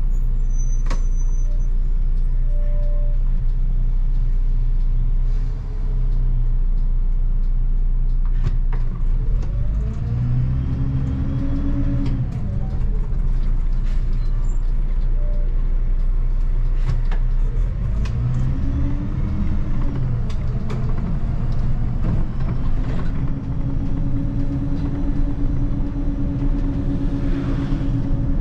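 2004 MAN 12.223 SLF city bus's 6.9-litre turbo diesel heard from the cab, a steady low rumble. About ten seconds in and again near twenty seconds the engine note climbs as the bus accelerates and drops back as the five-speed automatic changes up, then runs steadily.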